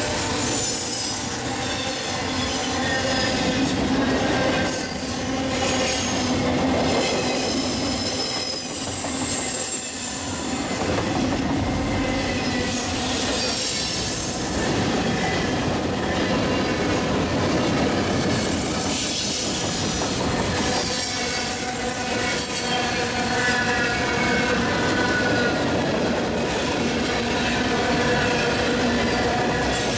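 Freight train cars, double-stack container well cars and then loaded flatcars, rolling past at close range: steady noise of steel wheels on the rails, with high-pitched wheel squeal that wavers and comes and goes throughout.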